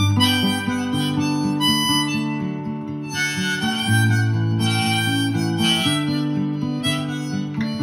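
Harmonica played in a neck holder over a strummed steel-string acoustic guitar, a folk-style instrumental passage with held harmonica notes over a steady strum.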